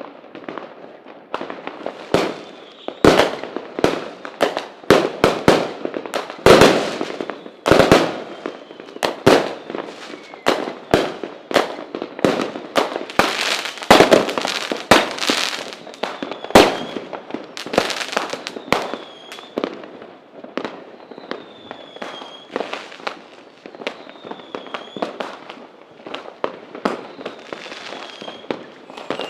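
Fireworks going off in rapid, irregular succession: many sharp bangs a second, some much louder than others, with crackling in between and, in the second half, a few faint whistles.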